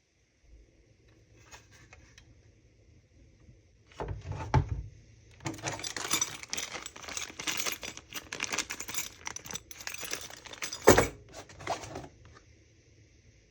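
Handling of an unboxed pistol frame kit and its packaging: a dense, continuous run of crinkling and clattering for about five seconds, with a loud single knock near the end and soft clicks before and after.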